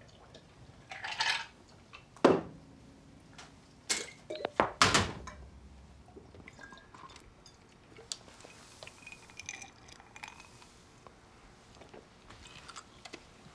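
A glass and a liquor bottle being handled: a few sharp clinks and knocks, the loudest about two and about five seconds in, then only faint small handling sounds.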